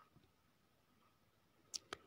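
Near silence, broken near the end by two sharp clicks a fraction of a second apart.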